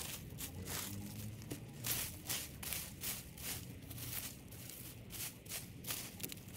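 Garden clean-up work in a flower bed: irregular scraping and rustling strokes, about two a second, as plants and soil are worked by hand or with a tool. A faint low hum runs underneath.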